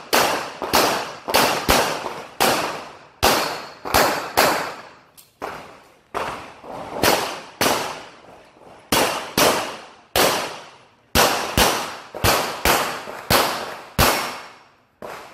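A rapid string of handgun shots during a timed IPSC stage, several a second in places with brief pauses between groups, each shot trailed by a long echo under the range's metal roof.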